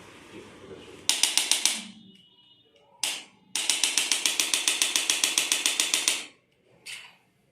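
Rapid percussion massage on the patient's body, fast even strikes at about ten a second: a short run about a second in, a single strike, then a longer run of nearly three seconds, and one last strike near the end.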